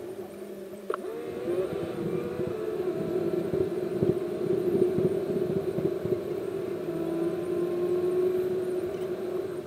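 Engine drone and road rumble heard inside the cab of a moving car, a steady hum whose pitch drifts slightly up and down as it drives at town speed, with a single sharp click about a second in.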